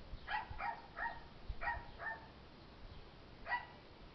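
A dog barking faintly: about six short, high yaps in uneven bursts, most of them in the first two seconds and one more near the end.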